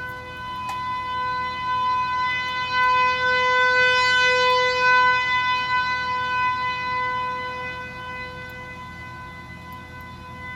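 Tornado warning siren sounding a steady, unwavering tone at full speed. It gets louder to a peak about four seconds in, then fades gradually.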